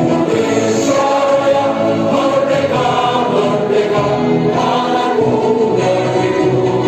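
A choir singing an anthem with instrumental accompaniment, in long held notes that step from one pitch to the next.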